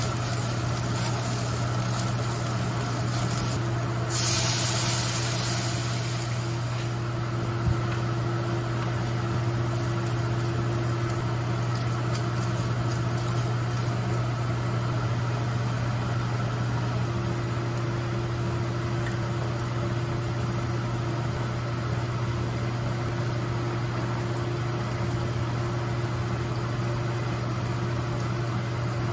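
Steady low motor hum at one pitch under stovetop cooking in a wok. About four seconds in there is a loud hiss lasting a couple of seconds, as water goes into the hot wok of scrambled eggs.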